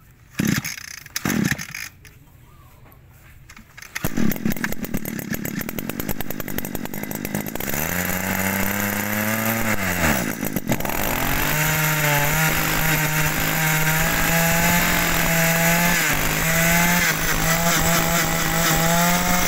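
Echo 22cc two-stroke brush cutter engine being pull-started: two quick yanks on the starter cord, then the engine fires about four seconds in and runs. Its note rises, sags and nearly dies around ten seconds in while the carburettor lever is worked, then picks up again and settles into a steady idle.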